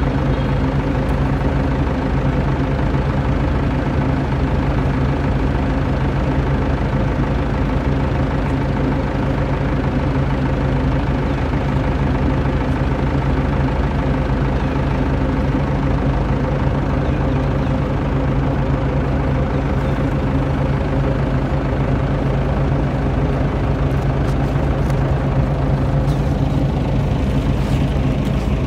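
An engine running steadily at idle, a constant low drone with a hum that does not change.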